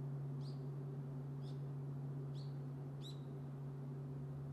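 Large Japanese temple bell (bonshō) with its deep hum ringing on after a strike, fading slowly. A small bird chirps four times over it, about once a second.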